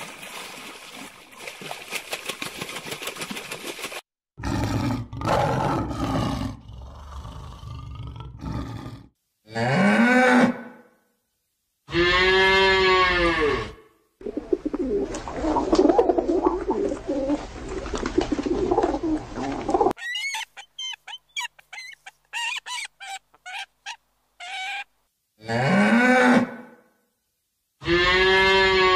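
Cows mooing: several separate long moos, each rising then falling in pitch, with stretches of rustling noise between them and a run of quick, short high chirps in the middle.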